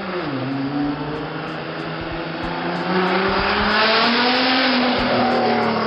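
Modified Nissan GT-R with a cat-less exhaust, running loud. The engine note dips at the start, then climbs and grows louder about three seconds in as the car accelerates or revs.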